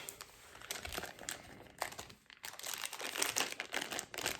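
Packaging crinkling and rustling in the hands as a brooch is unwrapped, with irregular small crackles.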